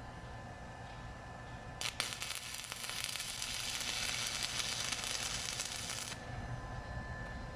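Electric arc welding with a portable welding machine: the arc strikes with a couple of sharp cracks about two seconds in, then burns with a steady crackling sizzle for about four seconds and cuts off when the arc is broken.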